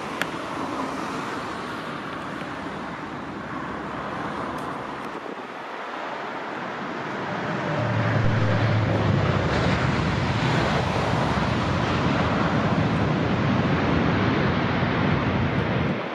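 Jet airliner engines running, heard as a broad rushing rumble that grows clearly louder and deeper about halfway through as a plane moves along the runway, then drops off suddenly at the end.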